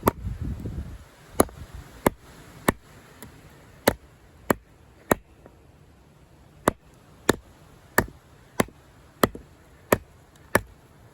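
Condor Heavy Duty Kukri, a thick high-carbon steel blade, chopping into wood with a steady run of sharp strokes, about one every 0.6 seconds, pausing briefly near the middle.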